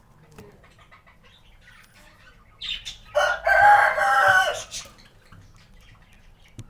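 A loud bird call lasting about a second and a half, just after a short high chirp, with faint chirps around it.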